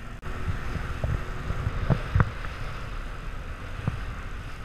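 Inflatable boat running through choppy sea: wind buffeting the microphone and water rushing along the hull, with several low thumps as the hull slaps the waves, the loudest about two seconds in.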